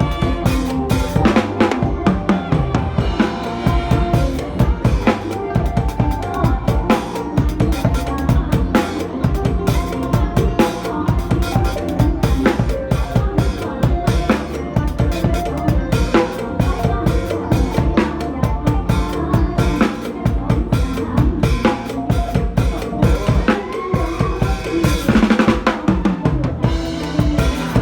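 Drum kit playing a fast, driving mor lam rhythm of kick, snare and rimshots, with the band's music underneath.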